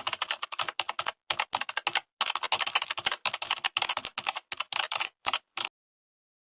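Rapid keyboard typing: a quick run of sharp key clicks, several a second with brief pauses, that stops abruptly near the end.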